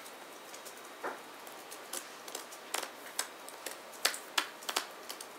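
Light, irregular clicks and taps of sleeved trading cards being picked up and set down on playmats, about ten over a few seconds.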